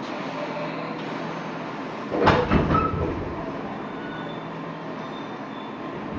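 JR East 205 series electric train running through a tunnel, heard from inside the car: a steady rumble of wheels and motors, echoing in the underground section, with a short loud clatter about two seconds in.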